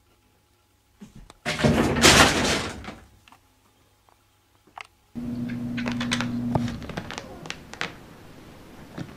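A loud thump with a clattering rush of noise, then after a pause a run of light, sharp clicks and scratches over a low hum.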